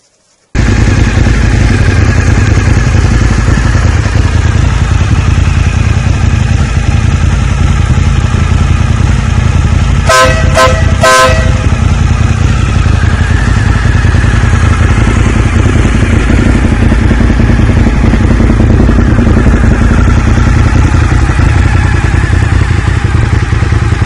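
Suzuki SV1000 V-twin engine running steadily and loud after new spark plugs, air filter and oil were fitted to cure a misfire. It comes in suddenly about half a second in, and its horn gives three short beeps about ten seconds in.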